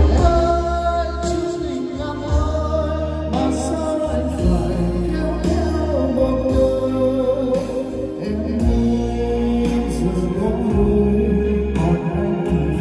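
A man singing a Vietnamese karaoke song into a microphone over the backing track, in long held notes, through karaoke speakers with echo added by a dB Acoustic S520 digital karaoke processor.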